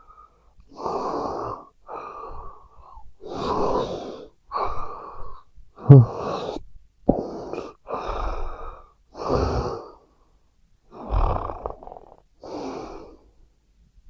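A sleeping person snoring in quick, noisy breaths, about ten in a row with short gaps between them, the loudest a sudden sharp one about six seconds in.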